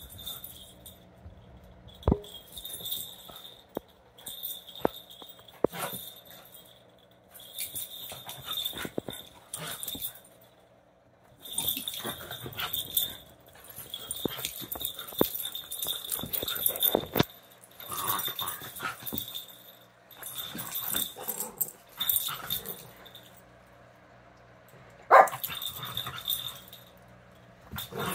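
Pembroke Welsh corgi and miniature schnauzer puppies play-fighting: bursts of yips and whimpers with scuffling and clicks of paws, broken by short lulls. One loud, short yip about 25 seconds in.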